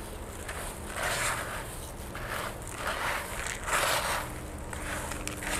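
Hands stirring a chunky potting mix of wood chips, tree bark and horticultural charcoal in a plastic basin: a few short crunching, rustling strokes.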